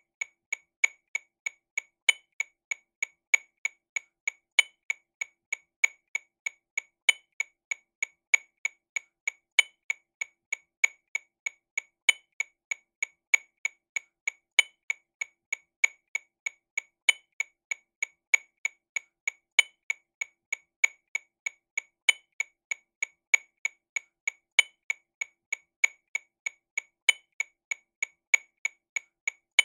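TAMA Rhythm Watch RW200 metronome clicking sixteenth notes at 48 BPM, a steady run of sharp clicks about three a second, with a louder accented click every two and a half seconds.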